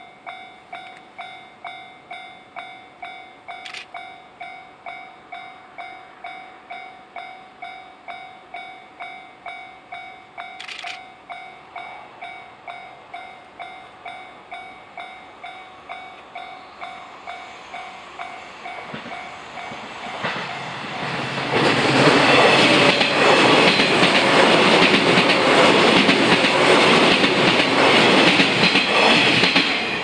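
Japanese level-crossing warning bell ringing steadily, about two dings a second. The noise of an approaching train swells from about two-thirds of the way in. A 485-series electric train then passes loudly over the crossing for the last eight seconds or so, drowning out the bell, and starts to fade just at the end.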